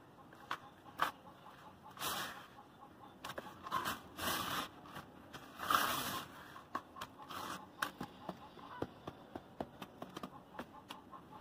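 Hands raking and scooping through dry crumbled cement grit in a plastic tub: gritty rustling swishes, the loudest in the first half, with many small crackles of grains.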